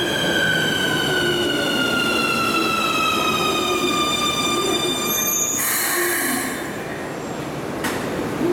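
Keikyu 1000 series electric train braking to a stop in an underground station: its inverter-driven traction motors whine in several tones that fall steadily in pitch as it slows, echoing off the station walls. As it halts, about five and a half seconds in, there is a short burst of air hiss from the brakes, then one sharp click near the end.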